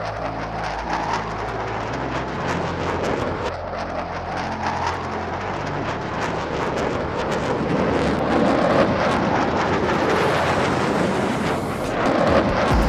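Aircraft takeoff roar, laid over the picture as a sound effect, building steadily louder over low sustained background music; a deep bass note comes in near the end.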